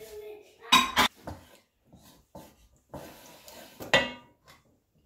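Wooden spoon stirring palm oil in a stone-coated metal pot, scraping and knocking against the pot. There are two sharp knocks just under a second in and another about four seconds in, each with a brief ring.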